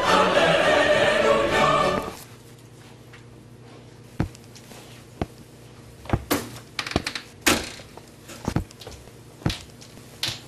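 Choral music that cuts off suddenly about two seconds in, followed by a string of irregular knocks and thunks, clustered more closely in the second half.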